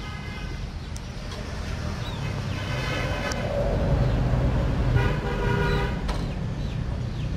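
Three held, horn-like tones of about a second each, each a single steady pitch, over a steady low rumble like distant traffic.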